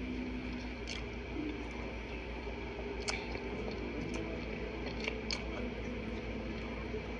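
A person slurping up a strand of spicy instant noodles and chewing, with several short wet mouth clicks and smacks.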